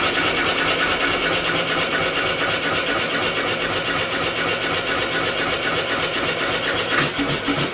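Homemade four-stroke engine built from a two-cylinder air compressor, turned over by an electric motor through a belt, running with a rapid, even mechanical clatter and hum. Near the end the sound grows louder and a pulsing, beat-like tone comes in.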